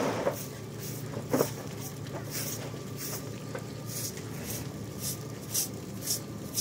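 Short straw hand broom sweeping muddy water across a wet floor, a swish about twice a second, with a duller knock about one and a half seconds in.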